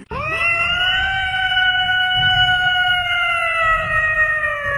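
A cat's single long yowl, sweeping up at the start, held on one pitch for several seconds and sinking slowly at the end.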